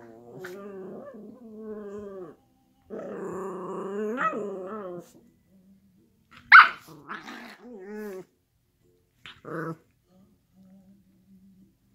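Two miniature schnauzers play-growling at each other during rough play, in long wavering growls through the first five seconds. About six and a half seconds in comes a sudden sharp cry, the loudest sound, then more growling and a short cry near ten seconds before it goes quiet.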